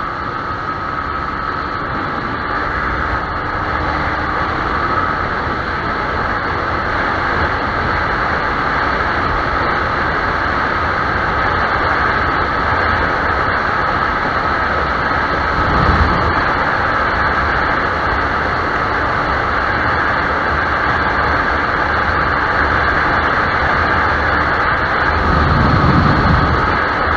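Wind and road noise from a Yamaha YZF-R15 motorcycle riding at speed, over a steady engine drone. A low rumble swells up briefly twice, about 16 seconds in and near the end.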